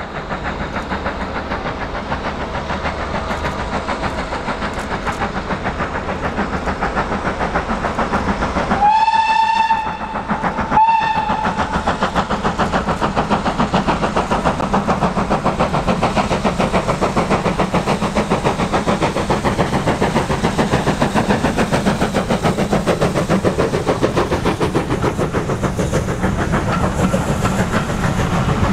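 Steam locomotive working hard, its exhaust beating in a steady rhythm throughout. A steam whistle sounds once long about nine seconds in, then gives a short second toot about a second later.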